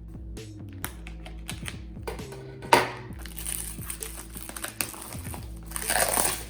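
Instrumental background beat with the clicks and taps of packaging being handled during an unboxing. A sharp knock comes a bit under three seconds in, and a loud rustle of packaging near the end.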